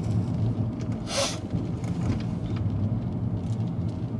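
Car engine and road noise heard from inside the cabin while driving: a steady low hum, with a brief hiss about a second in.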